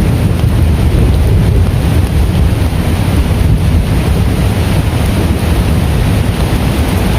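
Heavy rain and wind: a loud, steady rush with a deep rumble of wind buffeting the microphone.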